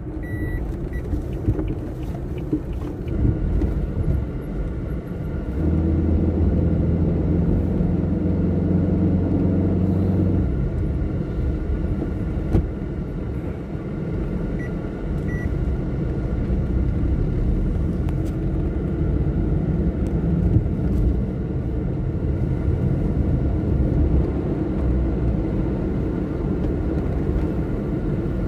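Vehicle engine and road noise while driving, a steady low rumble that swells into a louder, even engine hum from about 6 to 10 seconds in. A short run of high beeps sounds at the start and again about halfway through.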